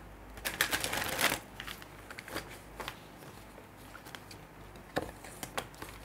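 Tarot cards being shuffled: a dense run of quick papery clicks for about a second, then a few separate card taps and flicks as the cards are handled.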